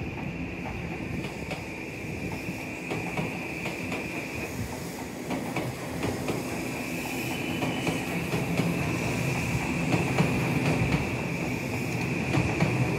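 Odakyu electric commuter train running through the station, its wheels clicking over rail joints with a steady rumble that grows louder. A steady high-pitched hiss runs beneath, dropping out for about two seconds midway.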